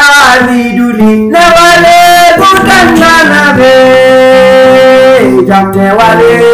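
A man singing while accompanying himself on an acoustic guitar, with one long held note in the middle.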